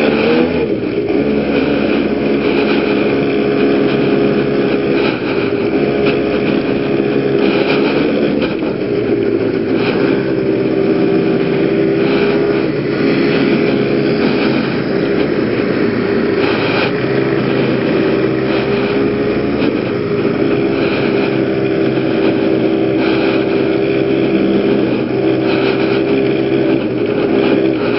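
PGO PMX 110cc two-stroke scooter engine running at a fairly steady throttle while riding, its pitch dipping and rising slightly now and then.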